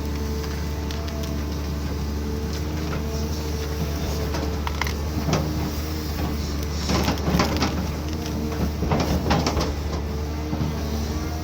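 Diesel engine of a Cat 320D2 excavator running steadily, with irregular sharp knocks and cracks about halfway through and again later.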